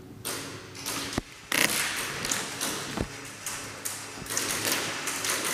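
Airsoft gunfire in an indoor arena: sharp clicks and taps of shots and BBs striking, a few at first, then quick irregular flurries from about a second and a half in.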